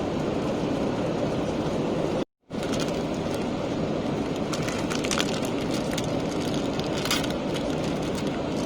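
Steady cabin noise of an airliner in flight: an even, low rumble with a hiss of air. It drops out completely for a moment a little over two seconds in, then carries on with a few faint ticks over it.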